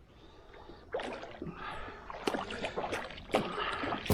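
Water sloshing around a fishing kayak, with small irregular clicks and knocks starting about a second in.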